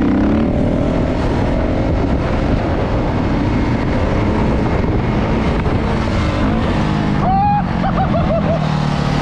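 Dirt bike engine running, its pitch drifting up and down, under a heavy steady rush of noise.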